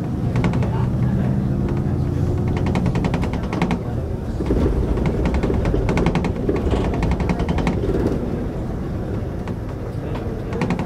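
City bus engine running as the bus drives along, heard from the driver's seat, with stretches of fast rattling from the bus body.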